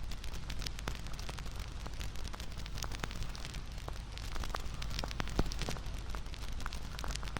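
Bonfire crackling, with irregular sharp pops and snaps over a steady low rumble of burning wood; one louder pop comes about five seconds in.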